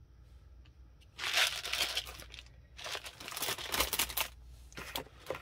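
Packaging rustling and crinkling as hands rummage through the kit's box, in two loud stretches of about a second and a half each after a quiet first second, with a few lighter rustles near the end.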